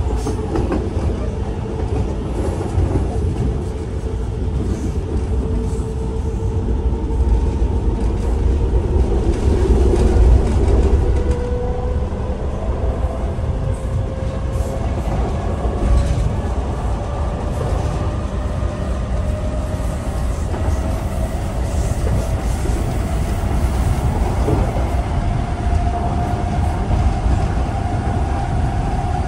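ÖBB class 4020 electric multiple unit running, heard from inside the passenger car: a steady low rumble of the running gear with a whine that rises slowly in pitch throughout as the train picks up speed.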